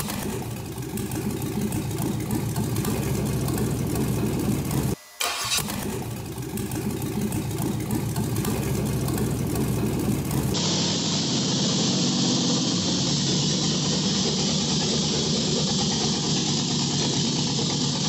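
Chevrolet 5.3-litre LS V8 running on an engine stand just after its first start, idling smoothly. The sound cuts out for a moment about five seconds in.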